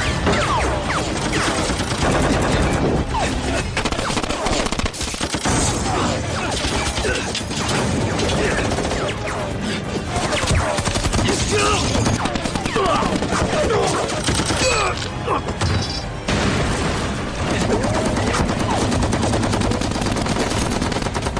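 Film soundtrack of a firefight: sustained, rapid automatic gunfire from rifles and a machine gun, with music and shouting mixed in.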